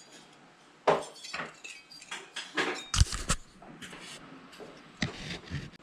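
Scattered clinks and knocks of metal engine parts being handled, with the heaviest knock about three seconds in.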